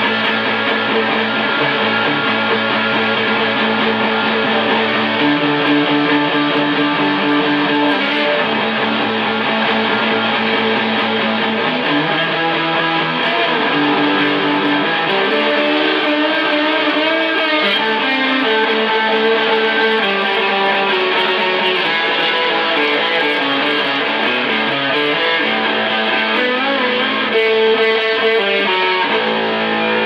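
Electric guitar played through an amp, sustained chords ringing, the chord changing every few seconds.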